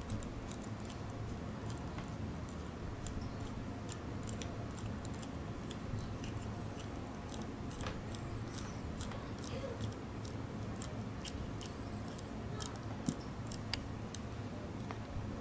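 Small, irregular metal clicks and ticks as a screwdriver turns a headless set screw into the hub of an aluminium Makeblock timing pulley, with one sharper click about thirteen seconds in. A steady low hum runs underneath.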